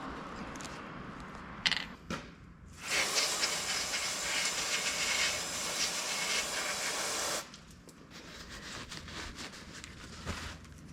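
Compressed air hissing steadily for about four and a half seconds, starting about three seconds in and cutting off sharply, as a car tyre is topped up with an air-line tyre inflator gauge. A sharp click comes shortly before the hiss.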